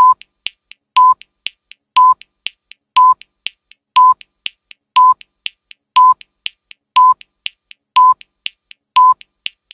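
Countdown timer sound effect: a short electronic beep once a second, ten in all, with fainter ticks between the beeps.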